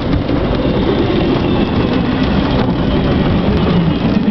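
Freight train of empty intermodal cars rolling past at speed: a loud, steady rumble and rattle of wheels on rail, muffled by the car it is heard from inside.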